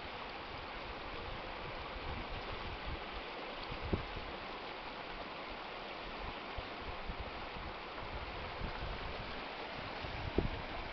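Steady rushing of a strong current flowing out through a harbour entrance as the water drains away after a mini tsunami surge, with wind buffeting the microphone and two brief thumps, one about four seconds in and one near the end.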